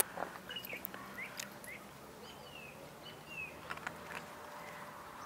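Faint bird chirps in the background, a few short rising and falling notes, with a few sharp clicks, the loudest at the very start.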